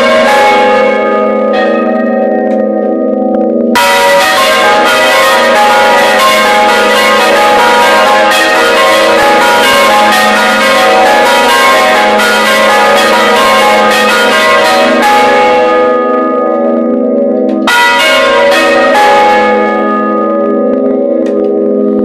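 Several large church bells swinging in their frame and struck by their clappers again and again, in a loud, overlapping peal heard right beside the bells. The strikes thin out briefly about three-quarters through, leaving the low hum ringing, before they pick up again.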